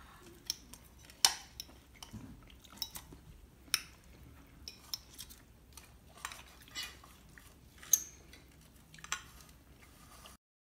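Metal spoon and fork clinking and scraping on ceramic dinner plates during a meal, with a handful of sharp separate clinks, the loudest about a second in, and soft chewing between them. The sound cuts off abruptly just before the end.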